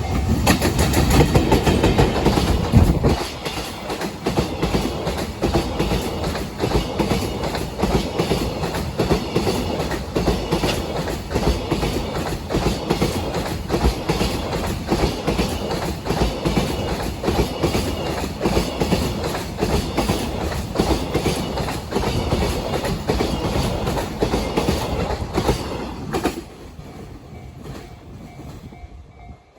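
Freight train passing over rail joints, its wheels clattering in a fast, steady rhythm of very loud joint knocks. It is loudest for the first three seconds, then drops away suddenly about 26 seconds in, leaving a level-crossing alarm ringing.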